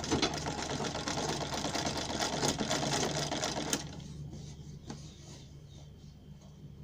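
Sewing machine stitching at speed, with a fast, even needle clatter that stops just under four seconds in. A few slower, softer stitch clicks follow over a steady low motor hum.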